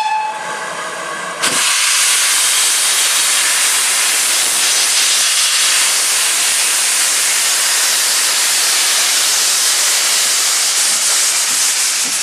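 GWR 'Hall' class 4-6-0 steam locomotive No 4953 starting away with its cylinder drain cocks open. The tail of its whistle ends at the very start, then a loud, steady hiss of steam cuts in suddenly about a second and a half in and continues.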